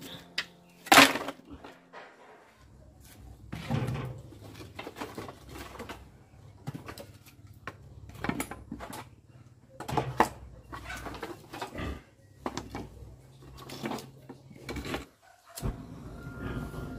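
Firewood sticks and split bamboo knocking and clattering against each other and the concrete floor as they are handled and pushed under a pot on a wood stove; irregular sharp knocks, the loudest about a second in, over a faint low hum.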